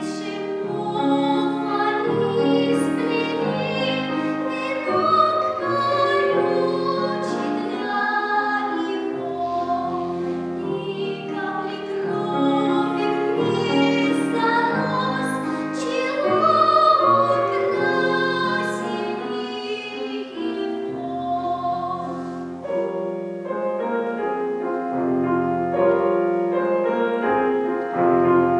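A young singer performing a classical song in academic, operatic style, with vibrato, accompanied by piano.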